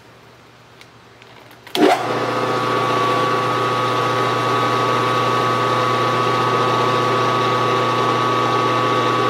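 Milling machine spindle switched on about two seconds in, starting abruptly and then running steadily in low gear with a hum and whine as it spins a slitting saw.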